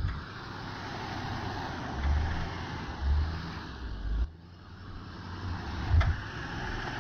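Pickup truck engine revving with its tyres spinning in deep snow while it is pulled free of being stuck, with several low thumps.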